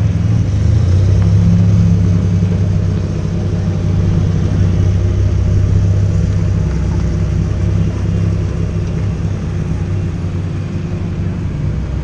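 Several Lamborghini supercar engines running at low revs as the cars roll off slowly one after another, a deep steady rumble that swells a little in the first couple of seconds.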